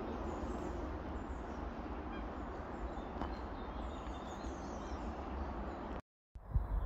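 Steady outdoor ambience: a low rumble under an even hiss, with a few faint bird chirps. It cuts out for a moment near the end, followed by a couple of dull thumps.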